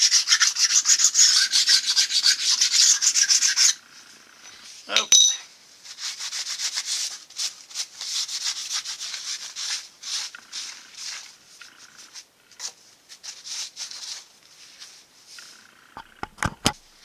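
Hard honing stone worked fast back and forth over the cast-iron rear face of a Studebaker V8 block, the bell housing mounting surface, to knock down burrs. The stoning stops about four seconds in, and a single metal clink follows. Then comes softer, intermittent rubbing as the surface is wiped with a paper towel, and a few light clicks near the end.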